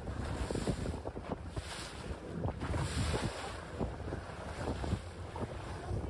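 Wind buffeting the microphone over water rushing and splashing against the hull of a small open boat under way in choppy sea, the hiss swelling and easing every second or two.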